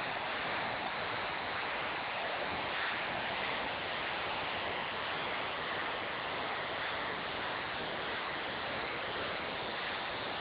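Hand-built miniature steam traction engine running on compressed air instead of steam, its exhaust giving a steady rushing hiss with no distinct beats.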